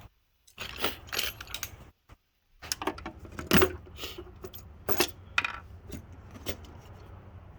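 Irregular sharp metallic clinks and rattles of metal tools or parts being handled, over a low steady hum.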